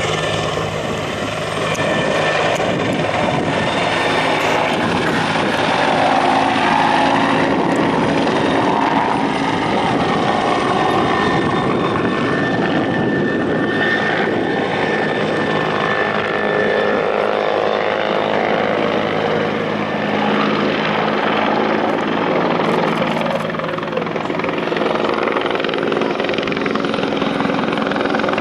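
Bell 412 helicopter in flight, its four-bladed main rotor and twin turboshaft engines running steadily.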